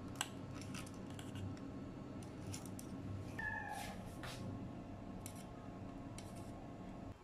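Metal kitchen tongs clicking and tapping against a ceramic plate as a breaded cutlet and a lemon slice are set down, with one sharp click just after the start and a short squeak about three and a half seconds in. A steady low hum runs underneath.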